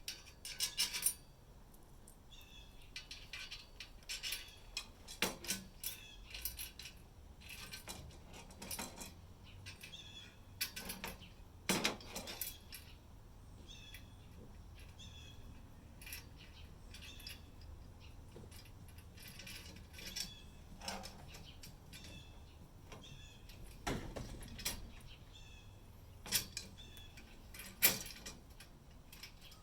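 Irregular clicks, taps and light metallic clatter of furniture parts and hardware being handled during assembly, with short high chirps in between.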